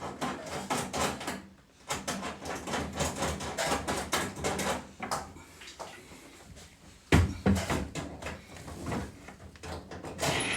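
A run of knocks, clicks and rattles from handling hardware during installation work, with one heavier thump about seven seconds in.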